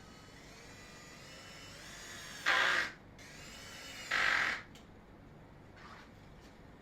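A power drill driving screws, twice: each time the motor whine rises in pitch and ends in a short, louder burst as the screw goes in.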